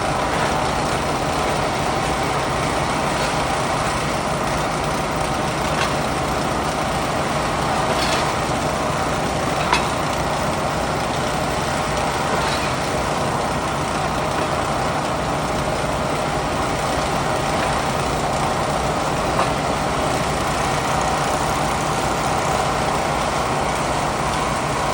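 An excavator's diesel engine running steadily, with a few sharp knocks, the loudest about ten seconds in.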